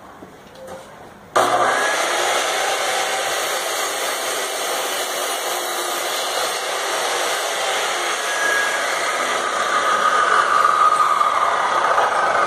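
Bosch GCO 2000 cut-off saw running at full speed as its disc cuts through a 14 cm wooden board. The loud, steady machine noise starts abruptly about a second in and grows a little louder near the end.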